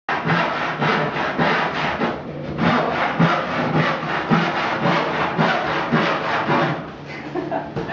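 Handsaw cutting through a large wooden board in quick, regular back-and-forth strokes, about three to four a second, with a brief pause about two seconds in.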